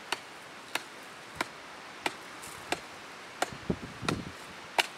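A long wooden pole jabbed repeatedly into hard, dry earth to dig, each stroke a sharp chop, about one every two-thirds of a second. Soft scraping of soil is heard between strokes near the end.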